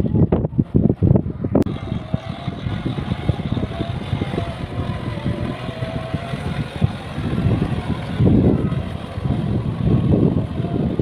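Kubota tractor's diesel engine running steadily under load while tilling a flooded rice paddy, with a faint whine over the engine noise. Wind buffets the microphone at the start and again near the end.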